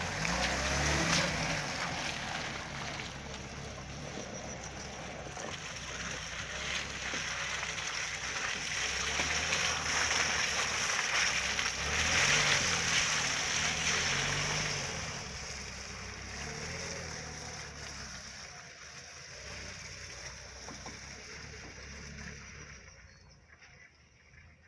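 Lada Niva's four-cylinder engine revving up and down as the 4x4 drives through mud, with the Toyo Open Country A/T III tyres churning and splashing through puddles. Loudest as it passes close about twelve seconds in, then fading as it drives away.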